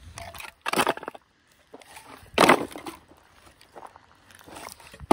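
Pieces of scrap wood knocking and crunching as they are handled, with louder clatters about a second in and again, loudest, about two and a half seconds in.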